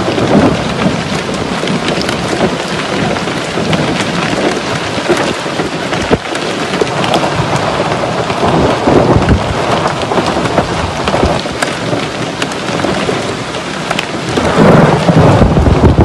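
Hailstorm with rain: hailstones pelting a paved road, a dense steady hiss peppered with sharp clicks of individual stones striking. Low rumbling swells come and go, the strongest near the end.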